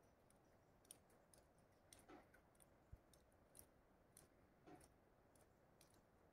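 Near silence: faint outdoor quiet with scattered faint ticks and a couple of soft rustles.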